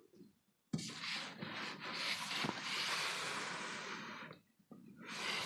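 Parcel packaging being handled and opened: a sudden start about a second in, then a few seconds of steady rustling, scraping noise with a few clicks, a short pause, and another stretch of rustling near the end.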